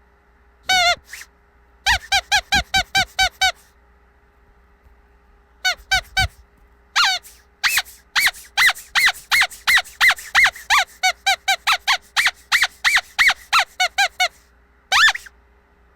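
Squeaky rubber dog toy being squeezed over and over: short, high squeaks in quick runs of about four a second, broken by a pause of about two seconds.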